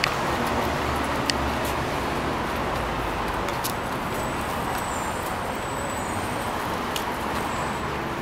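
Steady city street traffic noise, with a few light clicks scattered through it.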